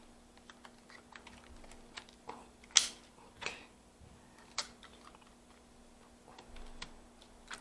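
Scattered light clicks and taps of hands handling an opened-up laptop's plastic parts, the sharpest click a little under three seconds in, over a faint steady hum.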